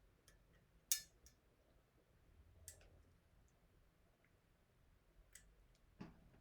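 A few short, sharp clicks and taps against near silence, the loudest about a second in: handling of a diecast model airplane and its packaging during unboxing.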